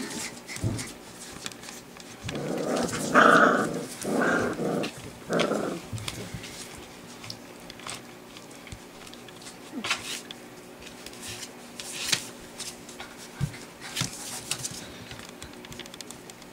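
Four-week-old golden retriever puppies play-growling while they wrestle: a run of about four short growls a couple of seconds in, then quieter scuffling with scattered light ticks.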